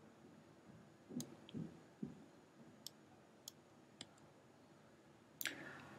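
Near silence with room tone, broken by a few faint, scattered clicks and soft taps, and a sharper click near the end.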